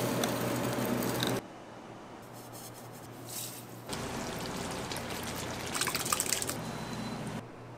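Liquid dripping and pouring over a steady low hum, in short shots that change abruptly about a second and a half in, near four seconds in, and again near the end, with a few small clicks a little after six seconds.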